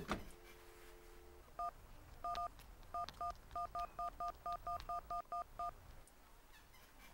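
Desk telephone: a clack as the handset is lifted, about a second of steady dial tone, then more than a dozen touch-tone key beeps as a long number is keyed in, in quick uneven runs.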